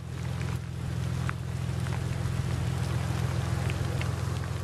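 A steady low hum with faint, scattered short ticks over it.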